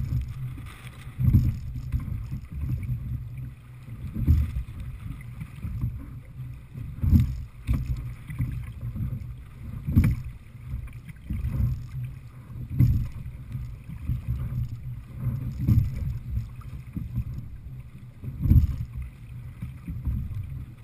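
Wind buffeting the microphone over water rushing past a sliding-seat rowing boat, the low rumble surging about every three seconds in time with the oar strokes.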